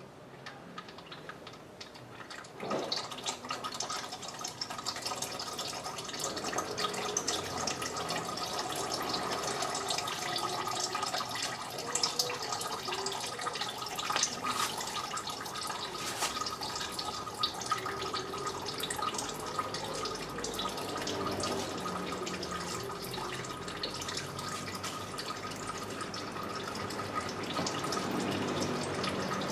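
Automatic transmission fluid draining from the drain plug hole of a Mercedes 722.6 five-speed automatic gearbox's pan, splattering and dripping into a catch container. It starts about three seconds in and then goes on steadily.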